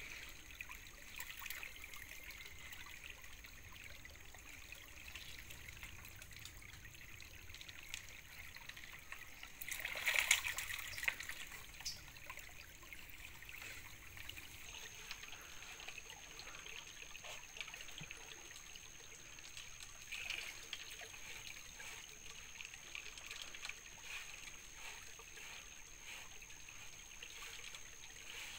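Shallow stream water trickling and running over stones and through a small wooden sluice box, with a brief louder burst about ten seconds in.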